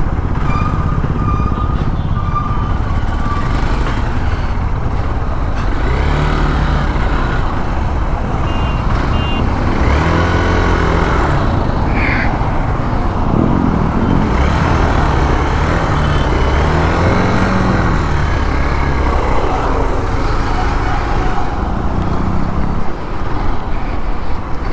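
Hero Xpulse motorcycle on the move: steady wind rush and road noise, with the engine's note rising and falling a few times as it speeds up and slows.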